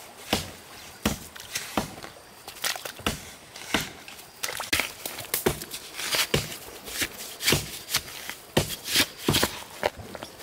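A metal-bladed digging tool chopping and scraping into wet, muddy soil, in repeated irregular strokes about one or two a second.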